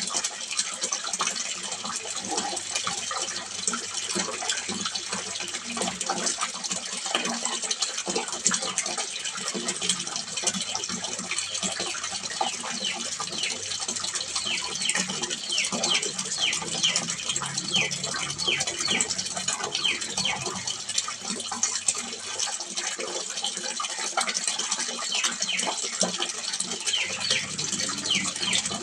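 Water splashing steadily into a small fish pond: a constant run of small splashes on the water surface.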